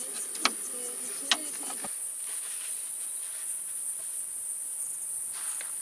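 Steady high-pitched chorus of insects, such as crickets or cicadas, with two sharp knocks in the first second and a half.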